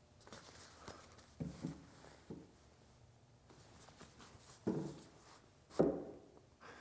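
Faint handling noise: a steel framing square being set against the end grain of a squared timber and moved by gloved hands. There are a few soft knocks and rubs, spread out, with one about a second and a half in and two near the end.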